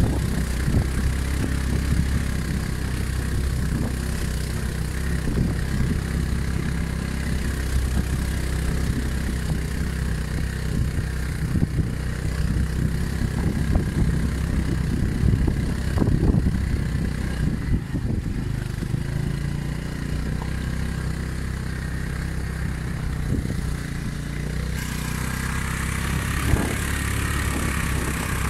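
Small two-wheeler engine running steadily while riding over a rough, stony dirt track, with scattered knocks and rattles from the bumps. The sound changes near the end.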